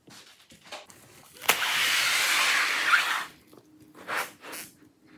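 Handling noise from the open laptop: a click, then a steady scraping rasp lasting about a second and a half that ends in another click, followed by a couple of short, softer rubs.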